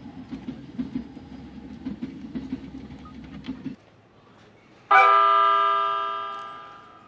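Train running noise heard from inside the carriage: a low rumble with scattered rail clicks, which cuts off about three-quarters of the way through the first half. About five seconds in, a train horn sounds suddenly as one loud chord of several tones, fading away over about two seconds.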